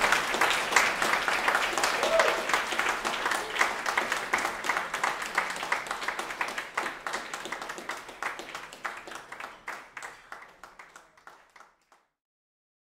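Audience applauding, with a brief cheer about two seconds in; the clapping fades out steadily and is gone shortly before the end.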